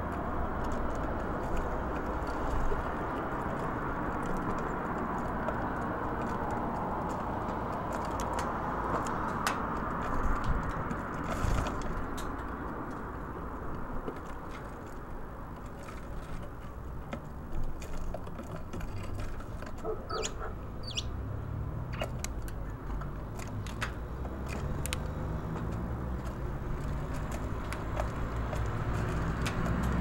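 Great tit and Eurasian tree sparrows at a wooden feeder: scattered sharp taps of beaks pecking seeds against the wood, and a couple of brief high chirps about two-thirds of the way in. Under it runs a steady low traffic rumble, with an engine's drone growing louder near the end.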